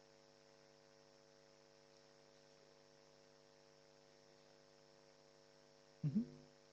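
Faint, steady electrical hum made of several evenly spaced tones, with a brief voice sound about six seconds in.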